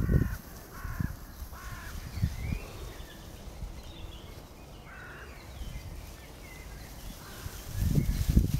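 A bird gives short, repeated calls, about one to two a second, with fainter small-bird chirps behind. Dull low thuds, most likely hooves of running lambs on the turf, come at the start and again near the end.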